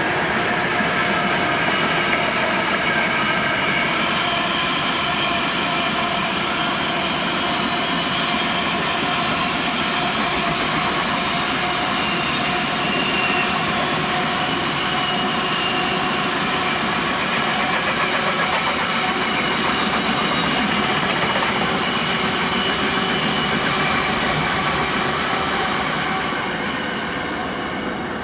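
Grain hopper wagons rolling slowly past, with a steady rumble and thin, high, wavering squeals from the steel wheels. The sound eases off near the end as the train's tail moves away.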